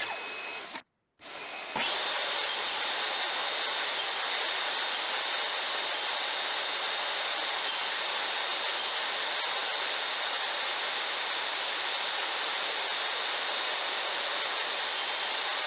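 A handheld power tool running steadily on wood, with a faint high whine over its noise; it cuts out abruptly about a second in and comes back at the same steady level.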